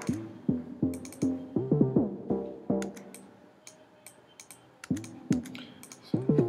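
Synthesizer melody from a future house template: short electronic notes whose pitch bends up and down, repeating in a looped phrase, with light mouse clicks over it. The notes stop about three seconds in and start again about five seconds in.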